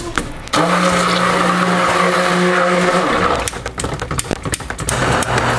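Epica stick blender running in a plastic bucket of soap batter: a steady motor hum for about three seconds, then a run of clicks and knocks, then the blender hums again at a lower pitch near the end.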